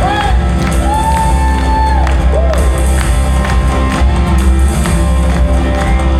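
Live praise band music with drums and a steady bass; a long high note is held about a second in.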